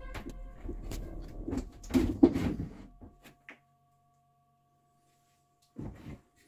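A few knocks, clicks and rustles of handling around a wooden cabinet over faint steady tones. From about three seconds in it drops to near silence with only the faint tones, and there is a short noise near the end.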